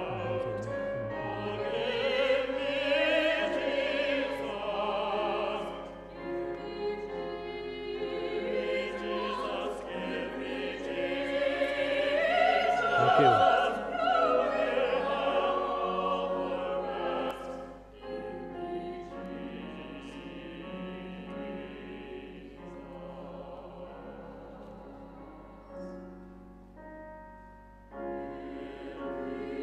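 Small mixed church choir singing an anthem, softer in the last few seconds before swelling again near the end.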